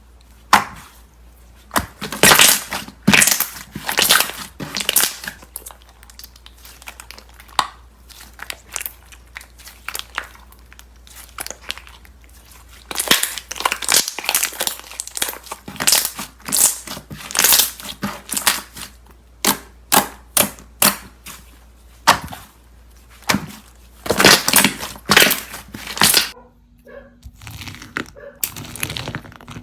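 Slime being squeezed, pressed and poked by hand, giving rapid irregular crackling pops and crinkling clicks. Near the end the clicks turn quieter over a faint steady hum.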